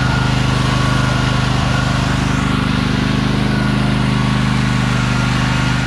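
Riding lawn tractor's small gasoline engine running steadily at an even speed while the tractor is driven, freshly started after cranking with starting fluid.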